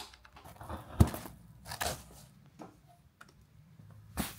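Handling of the white protective packing cover on a newly unboxed motorcycle: scattered rustling and tearing as it is pulled at, with a sharp click about a second in.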